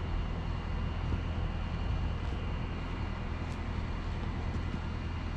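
Heavy diesel engine idling steadily, a low, even hum.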